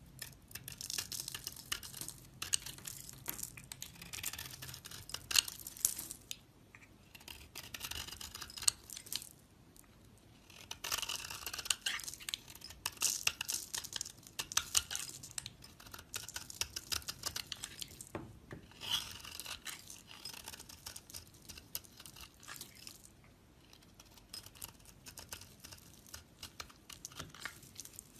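A blade cutting and scraping into a bar of soap, with a crisp, crackly scraping. It comes in several stretches a few seconds long, with brief pauses between them.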